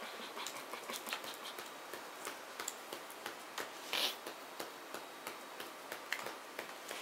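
Trading cards being shuffled and handled over a playmat: irregular light clicks and taps of card on card, with one louder rustle about four seconds in.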